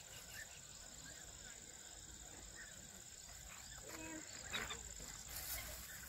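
Insects chirring in one steady, high, faint tone, with faint distant voices about four seconds in.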